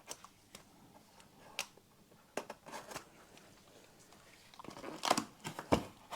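Packaging being handled during an unboxing: a few scattered clicks and rustles of the box and its wrapping, becoming a quick run of sharp crinkles and clicks near the end.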